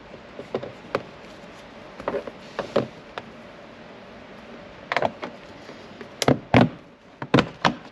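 Plastic trim clips clicking and snapping, with short knocks and taps, as a car's B-pillar trim panel is pried loose with a pry tool. The clicks come one at a time, sparse at first, and are loudest and closest together in the last three seconds.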